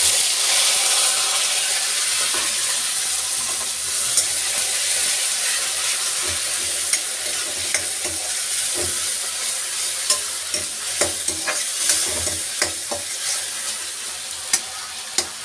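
Onion paste hitting hot oil in a metal kadhai: a loud sizzle that starts suddenly, then keeps frying while a spatula stirs, scraping and tapping against the pan.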